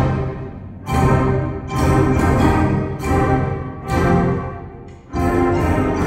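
Student concert band playing: brass and woodwinds in loud chords that swell and fade, coming back in with fresh attacks about a second in, near two seconds, at about four seconds and again just after five seconds.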